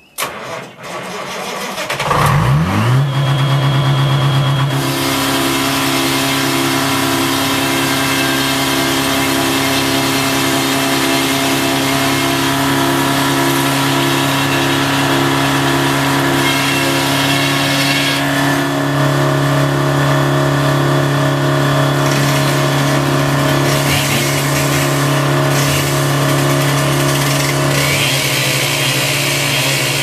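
Sawmill's power-unit engine started by jumping the starter with a screwdriver: it cranks briefly, catches about two seconds in and revs up, then settles into loud, steady running.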